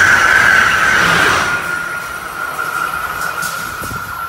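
Amtrak Acela Express high-speed trainset rushing past at speed, with a steady high-pitched whine. The whine dips slightly in pitch, and the rush drops off about a second and a half in as the last cars go by, leaving a fainter whine as the train moves away.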